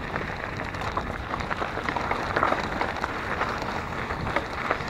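Mountain bike rolling over a gravel path: a steady crunch of tyres on stones, with many small clicks and rattles scattered through it.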